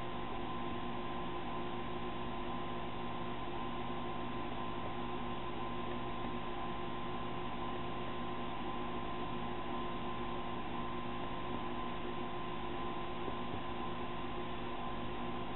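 Steady hum with several constant tones over a hiss: the RIMS wort recirculation pump running without change while the mash is held at temperature.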